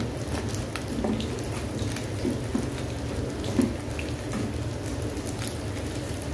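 Rice sizzling lightly in a nonstick wok as a wooden spatula stirs and turns it, with many scattered small taps and scrapes of the spatula against the pan over a steady low hum.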